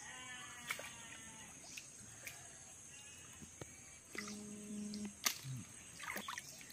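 Insects shrilling steadily and birds chirping, with small splashes and drips as hands pick periwinkle snails out of shallow water. A low steady hum, held for about a second, comes in about four seconds in.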